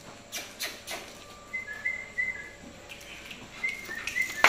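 A person whistling short, flat notes at two pitches in a few quick groups, as a command to dogs. Sharp clicks are scattered between the whistles.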